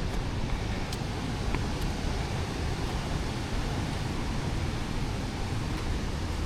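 Big Sioux River waterfall: a steady, even rush of falling water.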